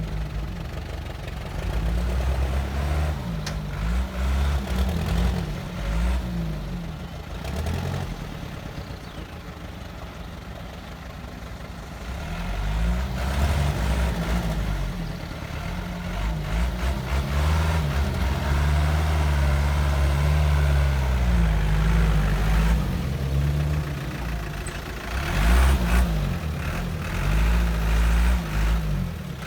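Heavy construction machine's diesel engine running, its speed rising and falling. It quiets for a few seconds around ten seconds in, then comes up again and is loudest about 26 seconds in.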